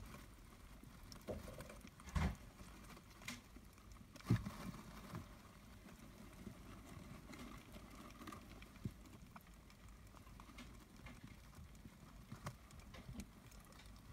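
Dwarf hamster pups shifting about and eating in their food bowl on wood-shaving bedding: faint rustling with scattered small clicks and knocks, the loudest about two and four seconds in.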